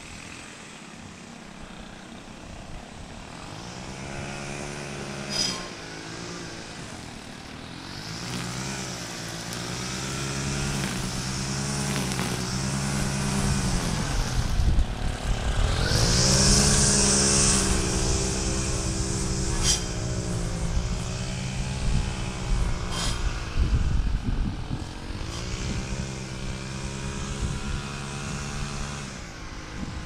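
Pickup truck engine running with a humming note that wavers in pitch, growing louder to a peak about halfway through as the bike passes close by the white Ford Super Duty, with a brief hiss at the loudest point.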